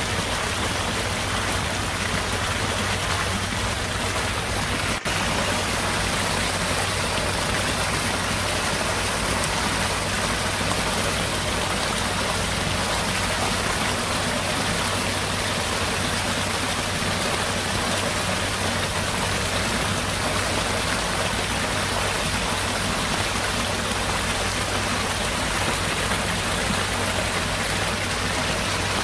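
Heavy rain falling steadily onto waterlogged ground, an even, unbroken downpour.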